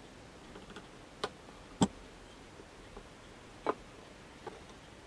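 Fingertips and nails tapping and pressing on a smartphone's glass screen as it is handled and settled on a wooden board: a handful of light, sharp clicks at irregular moments, the loudest just under two seconds in.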